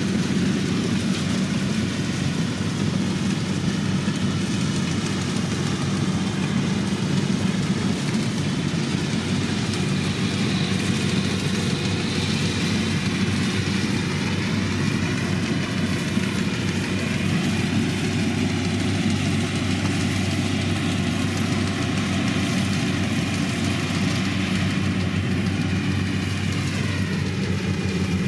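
Kubota DC105 combine harvester's diesel engine running steadily, with a fainter whine above it that wavers slowly in pitch.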